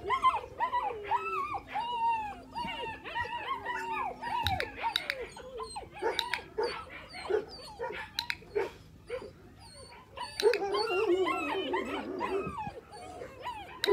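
Eight-week-old puppies whining and yelping, many high wavering cries overlapping one another, growing denser and louder near the end.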